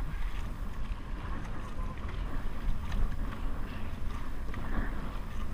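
Wind buffeting the microphone of an action camera on a moving dragon boat, a steady low rumble, with water splashing and churning from the crew's paddle strokes.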